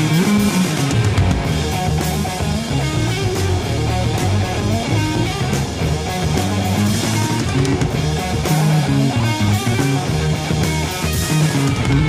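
Heavy metal band recording from the early 1970s: electric guitar, bass guitar and drums playing together.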